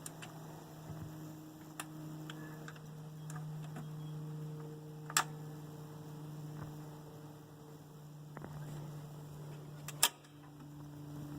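Steady electrical mains hum from the Zenith console's amplifier and speakers in the silent gap between songs, with a few sharp clicks about five and ten seconds in.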